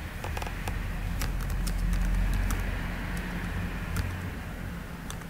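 Computer keyboard typing: irregular, scattered key clicks over a steady low hum.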